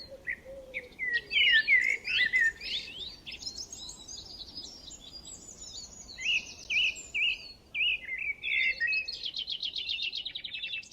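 Birds chirping and singing outdoors: a continuous run of varied high chirps and whistled phrases, with a fast trill near the end.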